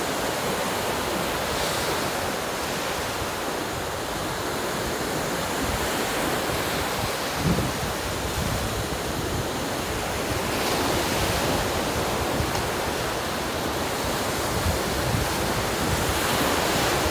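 Sea surf washing steadily onto the beach, with wind on the microphone, growing a little louder in the second half. A brief thump about seven seconds in.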